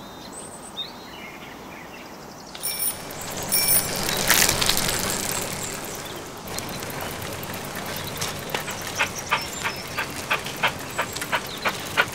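Outdoor ambience with faint bird chirps, then a bicycle bell rung twice about a second apart, a brief rush of noise, and a quick run of regular ticks, about three or four a second.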